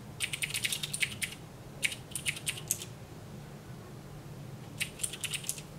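Clicky mechanical keyboard with Cherry MX Blue switches being typed on, in three quick runs of keystrokes: one right at the start, one about two seconds in, and a short one near the end.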